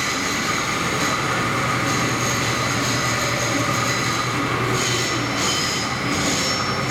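Milling machine cutting a steel stamping die: a steady, continuous machining noise with high-pitched ringing tones from the cutter on the metal.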